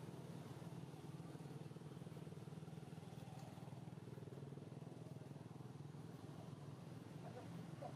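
Faint, steady low hum of a running motor, with a few faint short chirps near the end.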